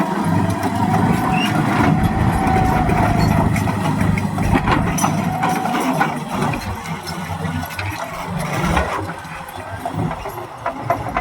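Caterpillar D9N bulldozer's diesel engine running, with a steady whine over it and scattered clanks; it gets quieter about six seconds in.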